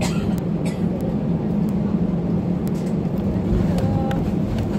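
Airbus A320 cabin noise on landing: a steady low rumble of the engines and airflow, with scattered small clicks and rattles from the cabin.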